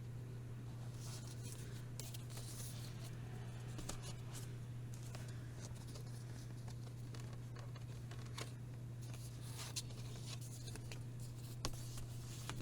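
Hands handling record packaging: soft rustling and scraping, with a few small clicks in the second half, over a steady low hum.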